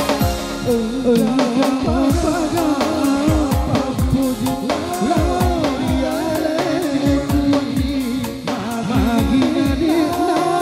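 A song: a singer's voice carrying a wavering melody over sustained backing instruments and a steady drum beat, the singing coming in about a second in.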